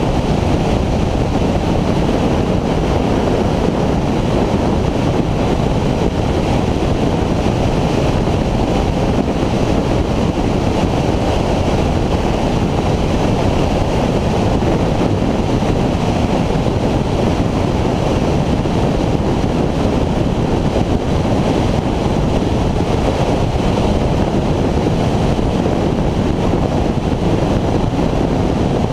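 Steady wind rush buffeting the microphone of a Honda VFR800X motorcycle riding at road speed, with the bike's V4 engine running under it.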